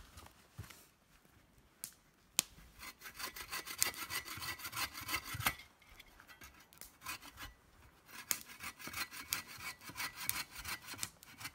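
Hand saw cutting through a dry branch: quick rasping back-and-forth strokes in two bouts, with a short pause in the middle and a sharp knock just before the first bout.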